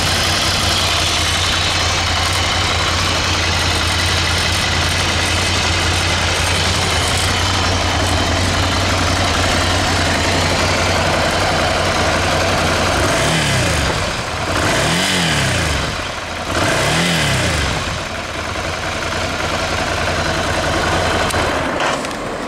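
Ducati Scrambler Urban Enduro's 803 cc air-cooled L-twin on its stock exhaust, idling steadily, then three short throttle blips about a second and a half apart, each rev rising and falling back to idle. The engine is switched off near the end.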